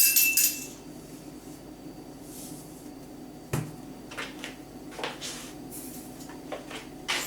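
Kitchen utensils and containers being handled while salt is measured into a bowl of dry ingredients: a few scattered light knocks and clicks, with one sharper knock about three and a half seconds in.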